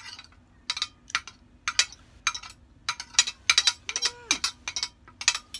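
Cutlery clinking and scraping against a plate in a quick, irregular run of sharp clinks, some of them ringing briefly, as food is scooped up.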